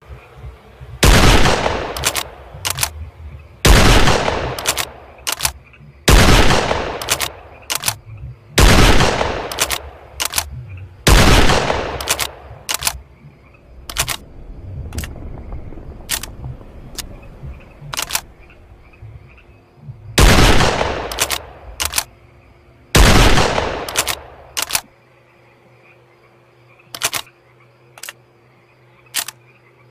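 Sawed-off Mosin-Nagant bolt-action rifle firing seven single shots, each with a short decaying echo. Five come about every two and a half seconds, then after a pause of about nine seconds filled with sharp metallic clicks come two more. Only clicks follow, with no further shots in the last few seconds.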